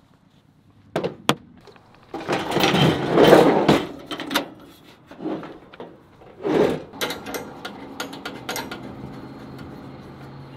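Camping gear being handled while a two-burner camp stove is set up: two sharp knocks, a loud scraping rush about two seconds in, scattered thumps, then a quick run of small clicks.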